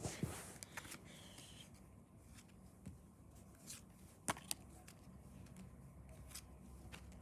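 Pokémon trading cards being flipped through by hand: soft flicks and slides of card on card, with a couple of sharper clicks about four seconds in.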